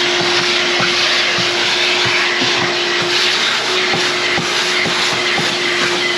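Ridgid wet/dry shop vacuum running steadily with a constant hum, its hose sucking dirt off the top of a fuel tank, with scattered small ticks of grit going up the hose.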